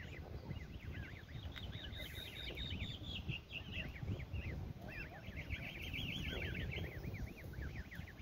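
A brood of Canada goose goslings peeping, many short high calls overlapping in quick succession, over a low rumble.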